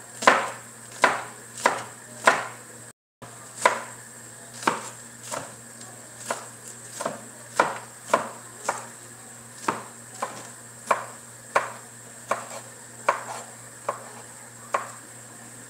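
Kitchen knife chopping green onions on a cutting board, slow single chops about one every three quarters of a second, stopping near the end.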